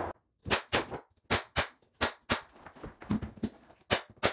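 Pneumatic nail gun firing about ten times, mostly in quick pairs, driving nails top and bottom through baseboard trim into the wall studs.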